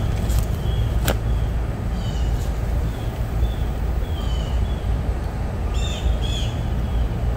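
A bird giving short chirping calls several times over a steady low rumble, with one sharp click about a second in.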